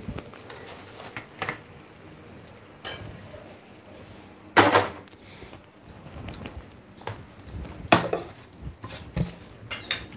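Kitchen handling sounds: a few scattered knocks and clinks of dishes and utensils, the loudest clatter about halfway through.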